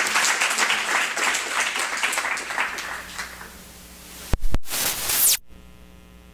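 Audience applauding, dying away over about three seconds. About four seconds in come two sharp knocks and a brief burst of noise that cuts off abruptly, leaving a faint steady hum.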